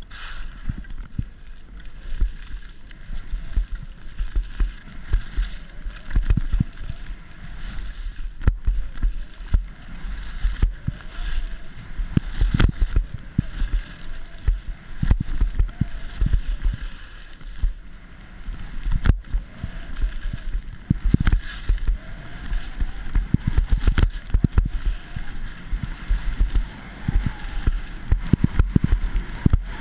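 Wind buffeting the camera's microphone as a skier runs fast down a groomed piste: a low, gusting rumble with skis scraping and chattering on packed snow. Several sharp knocks come through it, a few seconds apart.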